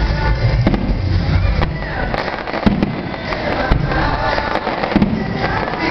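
Aerial fireworks shells bursting: a string of sharp bangs and crackles, with a deep rumble in the first second and a half or so.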